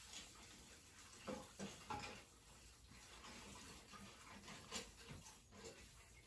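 Near silence: room tone with a few faint, brief rustles and soft taps scattered through it.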